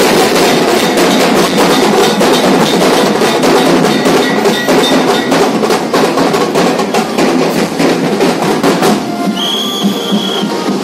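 Fast, dense procession drumming with clanking metal percussion from a Ganesh procession band. About a second before the end, a high steady tone like a whistle sounds for about a second.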